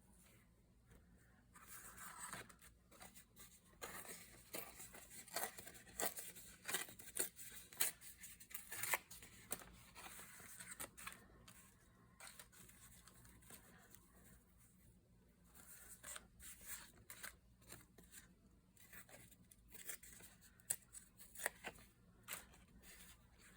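Paper being handled and worked by hand: irregular rustling, scraping and small clicks in two busy stretches with a quieter gap between.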